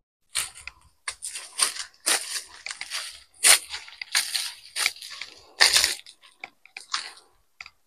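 Footsteps crunching on a dry dirt path strewn with dead leaves, in an irregular run of scrapes and crunches.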